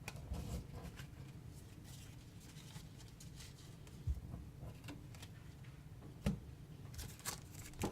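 Faint handling of trading cards and packaging: light rustling and small clicks, with two soft knocks about four and six seconds in.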